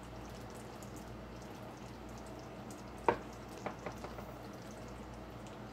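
Hot boiled butter, sugar and milk mixture bubbling quietly in a stainless saucepan as it settles just off the heat. A light click comes about three seconds in, with two smaller ones just after.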